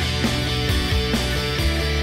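Background music with a steady beat and sustained instrumental notes.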